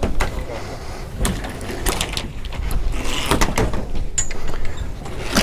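Scattered knocks, clicks and rattles of a sailboat mast and its rigging hardware being handled while the mast is unfastened, over a steady low rumble.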